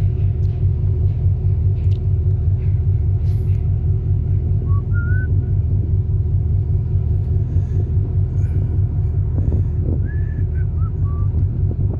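Steady low rumble of a ship under way, heard from its open deck. A few faint short chirps come about five seconds in and again near the end.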